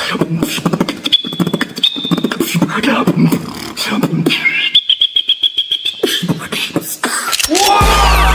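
Human beatboxing made with the mouth alone: quick drum-like kicks and snares over a buzzing bass, with short high whistle-like tones and a held, rapidly pulsing high tone midway. Near the end, a louder music track with a steady deep bass and sweeping electronic tones comes in.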